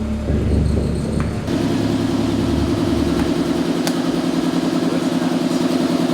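A motor running steadily with a fast, even pulsing hum that sets in about a second and a half in, over a deep rumble that fades out a few seconds later.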